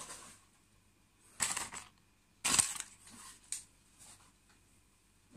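Packing material being handled: three brief rustles, about one and a half, two and a half and three and a half seconds in, the middle one loudest, with quiet between them.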